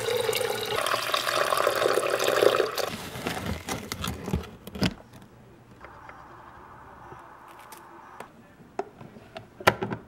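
Tap water running into a glass drip-coffee carafe in a stainless steel sink for about three seconds, its note rising about a second in. After a few knocks comes a faint rustle of ground coffee spooned into the coffee maker's filter basket, and a sharp click near the end.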